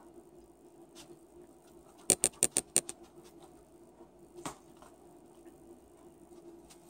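Metal knife and fork clicking against a plastic takeout container while cutting food: a quick run of about six sharp clicks about two seconds in, then a single softer click a couple of seconds later.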